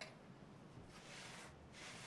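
Two faint, soft swishes of hands handling thin bolani dough and laying it on a cloth, with a light click at the very start.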